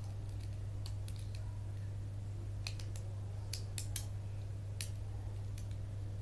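Small, sharp, irregular clicks from the parts of a tape measure being handled and worked on by hand, with a quick cluster of them near the middle. A steady low hum runs underneath.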